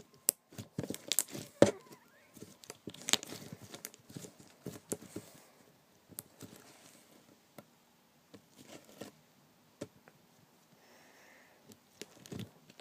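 Sticky slime being stretched and squished by hand, giving irregular crackling clicks and pops that are busier in the first half and thin out after about six seconds.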